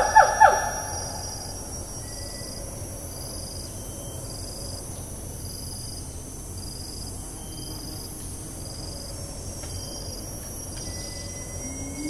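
A siamang's loud call ends with a quick run of sharp, pulsed notes in the first half-second. Then the rainforest insect chorus: a steady high whine with a chirp repeating a little faster than once a second. Right at the end a low hoot begins, rising in pitch.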